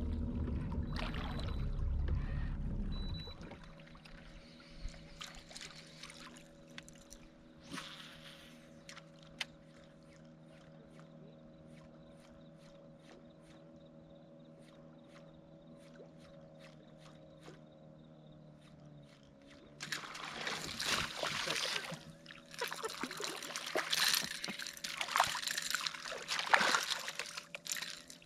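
Water sloshing and splashing beside a kayak, loudest in two noisy spells in the last third, over a steady low hum with faint scattered ticks between.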